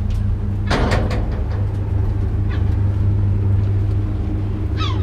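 A clank of a footstep on steel scaffold decking about a second in, over a steady low outdoor rumble. A few short falling bird calls sound near the end.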